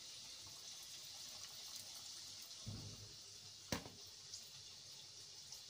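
Samosas deep-frying in hot oil in a kadhai, a faint steady sizzle. A dull thump a little before the middle and a sharp click just after it, the loudest moment.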